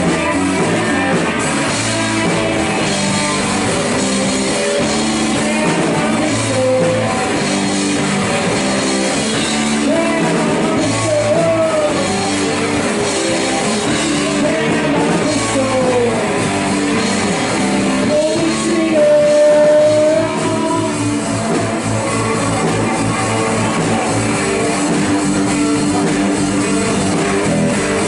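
Live rock band playing a song, with guitars, bass and drum kit, and a voice singing.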